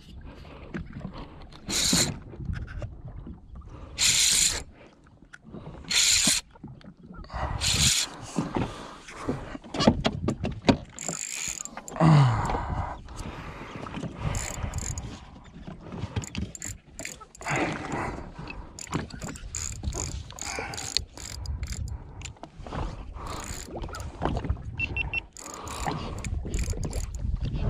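Handling sounds on a jet ski: a spinning reel being worked and gear being rummaged in the front storage hatch, with water slapping against the hull in irregular bursts.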